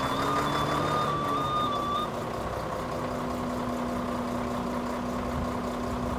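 Volvo A40 articulated haul truck's TD122 diesel engine running steadily. A steady high tone sounds over it and cuts off about two seconds in.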